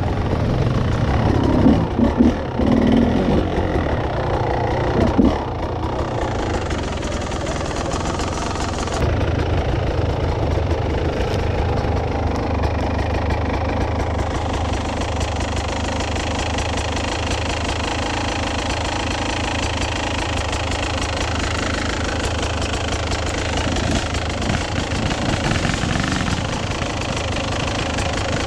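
Enduro dirt bike engines running at low, uneven revs, with a few loud thumps in the first few seconds. About nine seconds in the sound changes abruptly to a steadier engine drone.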